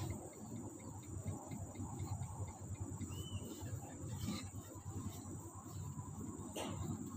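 Steady high-pitched chirring of insects, with a low rumble underneath and a few faint clicks. A short chirp sounds about three seconds in.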